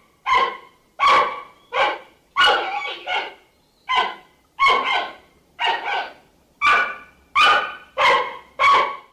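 Giant panda barking: a series of about a dozen short, sharp barks, some in quick pairs, coming every half-second to second.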